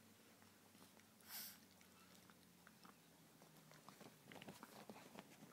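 Very faint mouthing and nibbling from two Chihuahuas play-biting each other, with scattered small clicks and a brief hiss about a second in.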